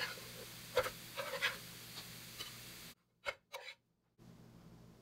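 Metal spatula scraping and clicking against a nonstick frying pan as fried potato cakes are lifted out: a few short scrapes, then the sound cuts out abruptly for about a second.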